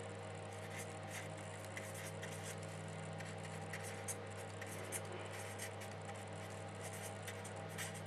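Felt-tip marker writing on paper, faint scratching strokes with scattered small ticks, over a steady low electrical hum.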